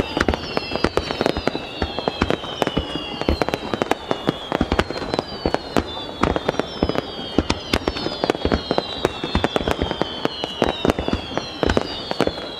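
Aerial fireworks bursting over a lake, many sharp bangs in rapid succession with their booms echoing back from the surrounding mountains. Over the bangs, a high whistle falls in pitch, repeating about once a second.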